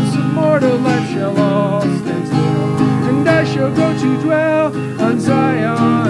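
A man singing a gospel hymn with a wavering voice, accompanying himself on a strummed acoustic guitar.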